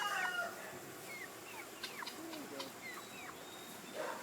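Chickens calling: a rooster's crow trails off in the first half second, then faint short falling chirps and clucks come a few at a time.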